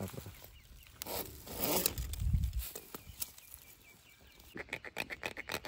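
Ribbed plastic suction hose and a metal hose clamp being handled and fitted: rubbing and scraping, a brief low rumble about two seconds in, then a run of rapid clicks near the end, like a zipper.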